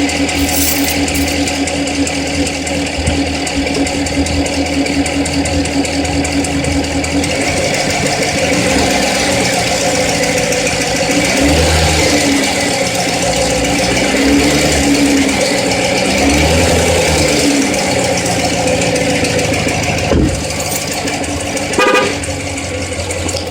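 Corvette engine running with a ticking/clicking noise. It idles steadily at first, then is revved up and allowed to fall back to idle several times through the middle, with a couple of sharp clicks near the end.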